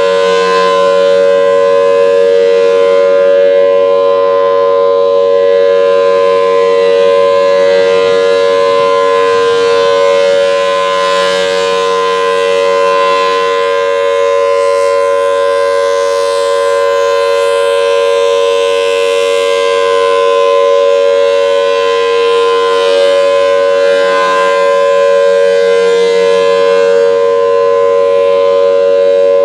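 Federal Signal Thunderbolt 1003 outdoor warning siren sounding its steady Alert signal: one loud held tone that swells and fades slightly as the siren turns.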